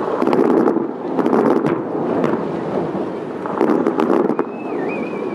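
Aerial fireworks bursting overhead: several booms with crackling, one after another. A thin wavering whistle comes in near the end.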